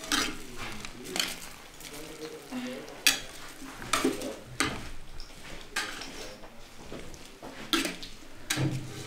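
Metal spoon scraping and knocking against an enamel pot as food is stirred, in irregular clinks and scrapes.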